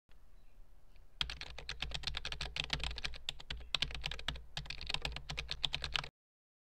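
Typing on a keyboard: a fast run of key clicks that starts about a second in and stops abruptly about six seconds in.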